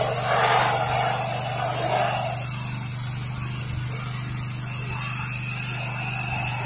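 Pressure washer wand spraying a stream of sodium hypochlorite cleaning solution onto house siding: a steady spray hiss over the steady hum of the pressure washer's engine. The spray's splash is louder for the first couple of seconds and again near the end.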